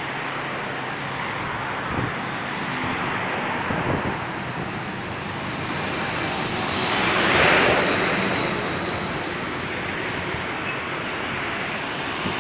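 Roadside traffic noise: a steady rush of passing vehicles, with one vehicle passing close and getting loudest about seven to eight seconds in before fading.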